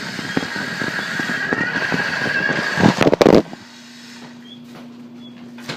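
Toy RC truck's small electric motor and gears whining as it drives, with rattle and surface noise, then a loud burst of knocks and clatter about three seconds in, after which the running sound stops and only a quiet low hum remains.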